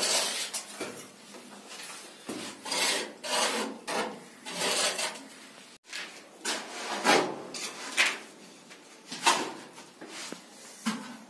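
Repeated rasping strokes of a tool scraped over cement plaster, irregular, about one a second.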